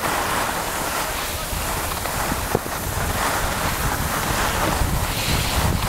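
Steady rushing noise of skiing downhill: skis sliding over packed snow, with wind on the microphone.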